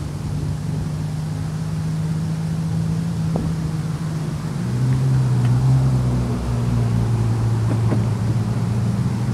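Low, steady engine drone with a clear hum in it; about five seconds in the hum drops to a lower pitch and grows louder, as a second engine comes to the fore.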